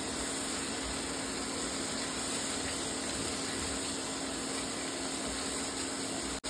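Tomato-onion purée with ground spices frying and sizzling in a non-stick pan while being stirred: a steady sizzling hiss with a steady low hum underneath.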